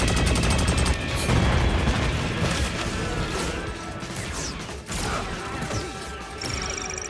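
Mechanical clanking and crashing sound effects with music underneath, with several sharp impacts, then a thin, slightly rising electronic tone near the end.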